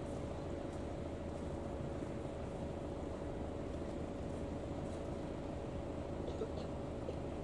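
Steady low rumble of a slow line of cars in a motorcade, with a faint steady hum.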